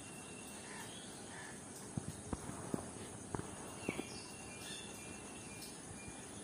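Faint background noise with a thin, steady high insect chirp, and several soft clicks and knocks between about two and four seconds in.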